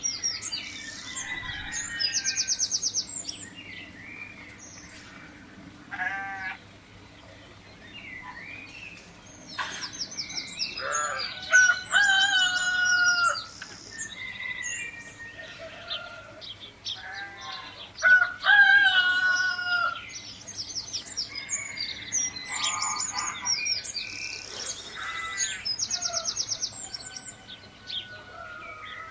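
Farmyard bird calls: chickens and a rooster calling, with small birds chirping and trilling in rapid high runs between them. The louder, longer calls come about 11 and 18 seconds in.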